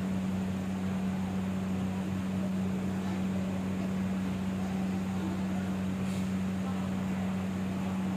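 Diesel express bus idling: a steady, unchanging low engine hum, with a faint short hiss of air about six seconds in.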